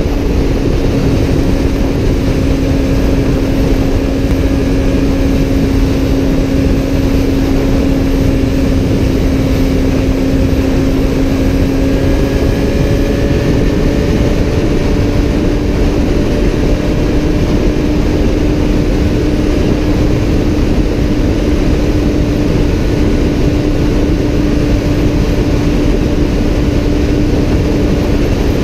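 Kawasaki Z1000's inline-four engine running hard at high revs at around 200 km/h, a steady note that rises slightly about halfway through and then holds, over heavy wind rush.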